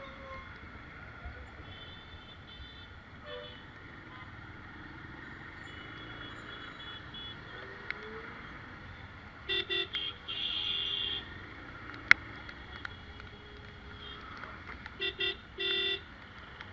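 Vehicle horns honking in short toots: a few blasts about ten seconds in and a quick cluster near the end, over steady street noise, with one sharp click in between.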